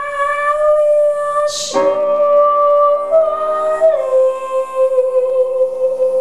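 Female singer's voice in a live song, holding long sustained notes with a quick audible breath about one and a half seconds in; the second note wavers slightly higher, then drops to a lower held note about four seconds in. A soft, steady sustained accompaniment sits underneath.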